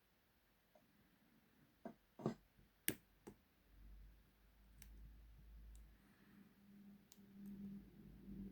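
Faint, scattered clicks of a lock pick and tension wrench working the pins of a Castle 400/40 40 mm padlock, with sharper clicks about two to three seconds in and a low handling rumble in the middle.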